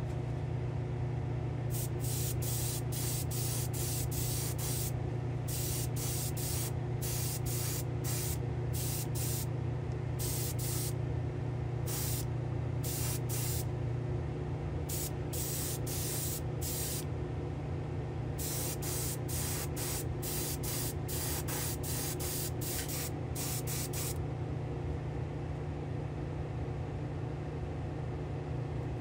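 Airbrush spraying liquid chrome paint in many short trigger bursts of hiss, grouped in runs with brief pauses between, over a steady low hum.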